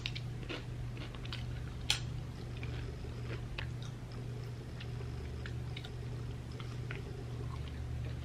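Close-up chewing of crisp papad: small crackles and wet mouth clicks, with one sharp crunch about two seconds in. A low steady hum runs underneath.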